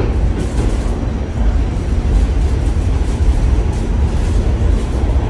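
New York City subway train running, heard from inside the car: a loud, steady low rumble of wheels on the rails with a few faint clacks.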